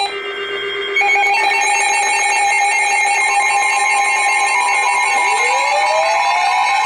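Electronic emergency alert tone: a loud, steady, shrill alarm of several held pitches that steps up in strength about a second in. A second tone rising in pitch joins about five seconds in.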